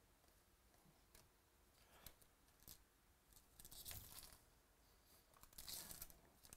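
A 2018 Bowman Baseball pack wrapper being torn open and crinkled by hand, in two short spells: one about halfway through and one near the end. A few faint ticks come before it.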